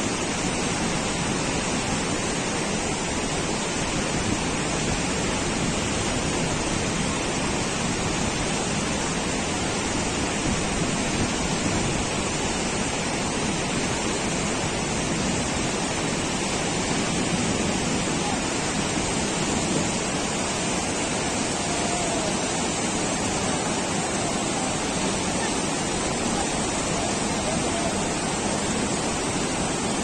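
White-water river rapids rushing steadily over rocks.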